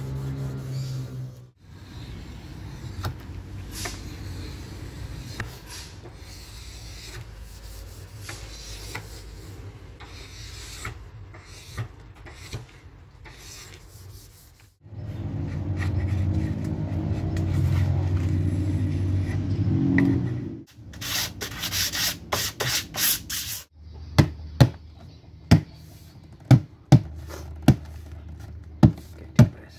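A steel blade scraping and rubbing along a wooden table panel by hand, with a low steady hum for several seconds midway and a quick run of scraping strokes after it. Near the end, about seven sharp knocks as the panel is knocked down into its frame with a fist.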